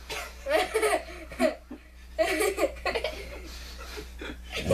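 People laughing in short bursts, a boy among them.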